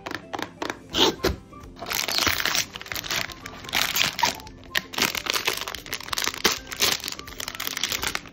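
Hands handling a blind box and its foil wrapper bag: sharp clicks and knocks from the box in the first second or so, then loud crinkling and rustling of the foil bag as it is pulled out and torn open.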